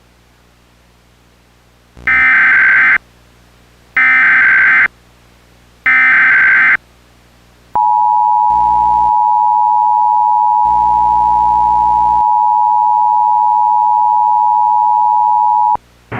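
Emergency Alert System activation tones: three one-second bursts of warbling SAME header data, a second apart, then the two-tone EAS attention signal held steadily for about eight seconds.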